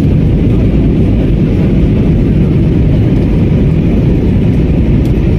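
Steady, loud rumble of jet engine and airflow noise heard inside the cabin of an Airbus A320.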